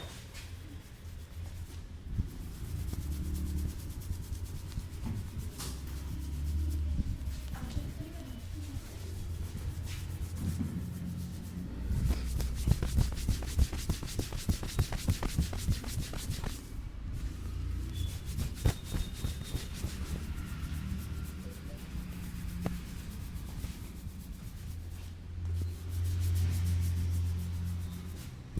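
Head massage: a barber's hands rubbing and working the scalp and hair close to the microphone, a steady scratchy rubbing with low handling rumbles. About twelve seconds in, it turns into a quicker run of crackly scratches for a few seconds.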